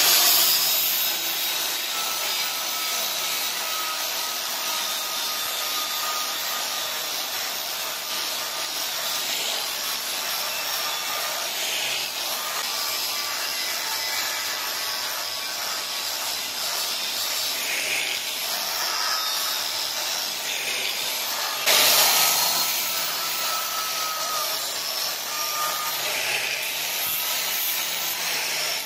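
Angle grinder with an abrasive disc grinding the steel blade of a pair of scissors held in a vise: a steady grinding hiss over the motor's whine. It grows louder for a moment about three-quarters through.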